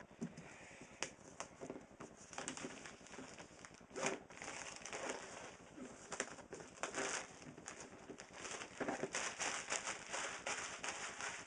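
Clear plastic packaging crinkling and crackling as it is handled and pulled out of a cardboard box. Scattered clicks and rustles at first, turning into dense, continuous crinkling after about four seconds.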